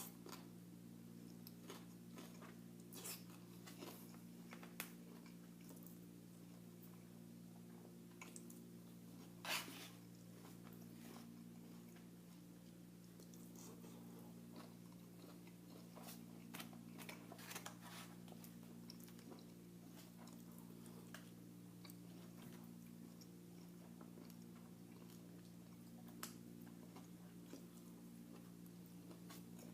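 Quiet chewing and biting of food, with scattered small clicks and a louder click about nine and a half seconds in, over a steady low hum.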